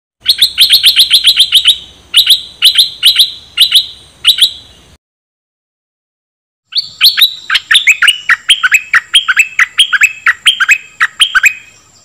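Stripe-throated bulbul singing: a fast run of about ten sharp chirps, then slower chirps in pairs. After a break of nearly two seconds comes a steady string of quick falling notes, about four a second.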